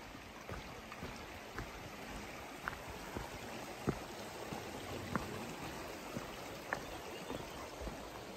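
Small creek flowing steadily, with scattered brief clicks over the water noise.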